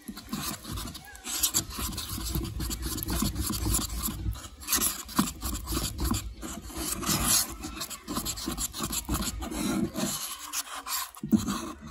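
Plastic spoon stirring thick plaster of Paris in a paper cup, scraping against the cup's sides and bottom in a continuous irregular scrape, with a brief pause about ten seconds in. The plaster is being mixed to a thick, pancake-batter consistency for casting.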